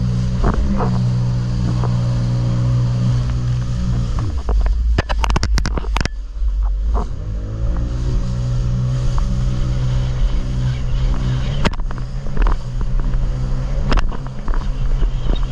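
Jet ski engine running at steady high revs, with low wind rumble on the microphone. About four seconds in the engine note falls away amid a burst of sharp knocks, then climbs back up to speed and holds steady.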